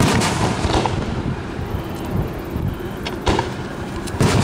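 Aerial firework shells bursting: a loud boom right at the start that rumbles on for over a second, a sharp crack a little past three seconds in, and another loud boom near the end.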